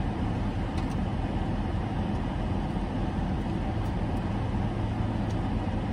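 Steady hum of a parked car's air conditioning turned up high, with the engine idling, heard inside the cabin.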